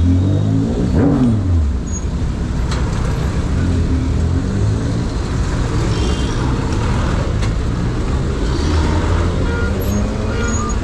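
Road traffic: motor vehicle engines running close by, a steady low rumble, with one sound falling quickly in pitch about a second in.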